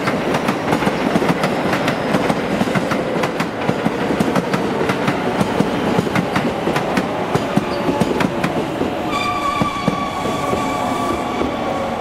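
Train running past, its wheels clicking rapidly over rail joints. About nine seconds in, a steady high tone starts and holds.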